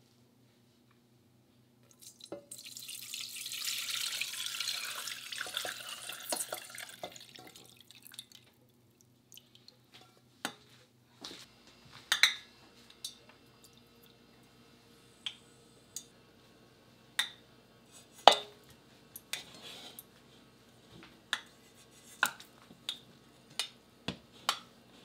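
Corn oil poured into an empty stainless steel saucepan, a splashing pour lasting about six seconds. After it, a string of sharp separate clicks about once a second, coming closer together near the end, over a faint low hum.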